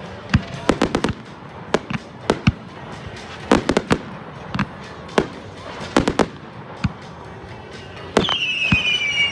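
Fireworks going off: an irregular string of sharp bangs and cracks from aerial shells. Near the end a loud high whistle starts and slowly falls in pitch.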